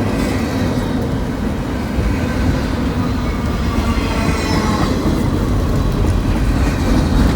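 CSX intermodal freight train cars rolling past at speed: a steady, loud rumble of steel wheels on rail, with faint high wheel squeal drifting in and out.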